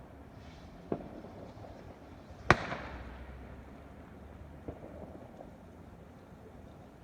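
Fireworks going off: three bangs over a few seconds, the middle one by far the loudest, with an echoing tail.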